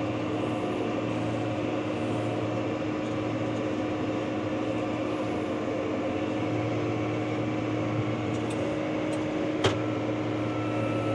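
Tractor engine and round baler running steadily, a constant drone heard from inside the tractor cab, with one sharp click near the end.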